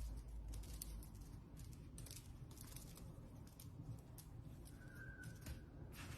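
Very faint room tone with scattered light clicks, and a brief faint steady tone about five seconds in.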